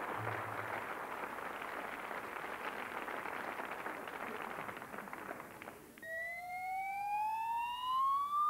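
Audience applauding. About six seconds in, the applause is cut off suddenly by a single whistling tone that rises steadily in pitch, a stage sound effect.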